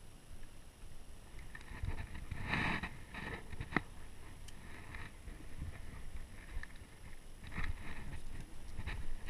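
Scattered faint clicks, knocks and rustles of fishing tackle and rod being handled aboard a small boat, over a low steady rumble.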